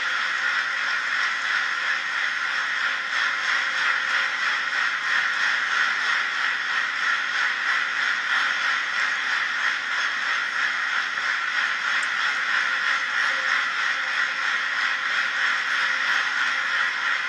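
Large arena crowd applauding steadily: a sustained ovation at the end of a figure skating performance.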